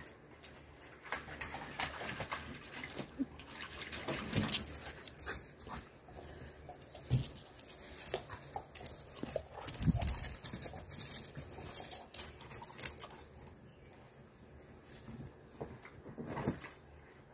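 A dog making short whimpering sounds amid irregular rustling and knocks, with a couple of heavier thumps midway.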